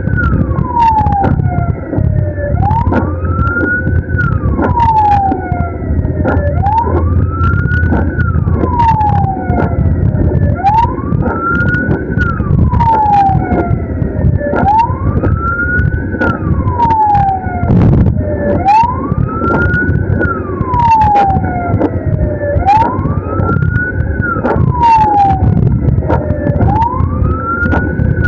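Ambulance siren in a slow wail, rising and falling in pitch about every four seconds, over a steady low rumble of engine and road noise, with scattered sharp clicks.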